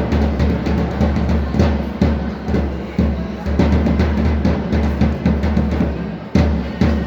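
Bass drums and snare-type drums beaten in a steady, driving rhythm: loud low beats about once a second, with quicker hits between them.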